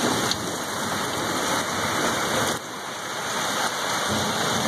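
Heavy thunderstorm rain pouring down, a steady hiss that dips briefly about halfway through.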